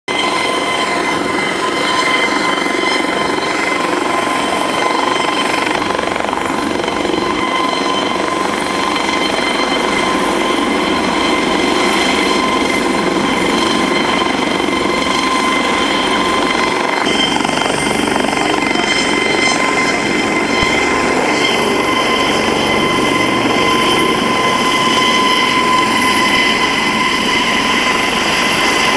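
Helicopter in flight, its rotor and turbine engine running steadily, with a steady high whine over the rotor noise. The tone shifts slightly a little past halfway.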